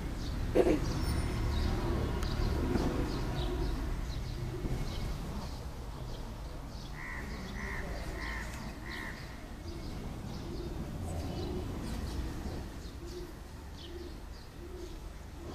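A single sharp knock near the start. About halfway through a crow caws four times in quick, even succession, and pigeons coo softly and repeatedly after it.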